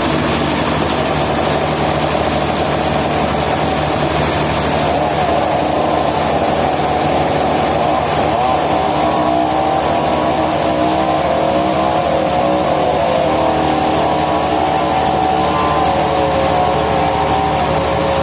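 Steady, loud drone of a running engine or machine, with a constant low hum and a wavering higher tone over it.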